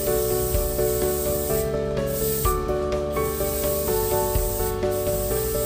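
Savlon disinfectant aerosol spray can hissing in several bursts with short breaks between them, sprayed onto a cardboard parcel to sanitize it, over background music.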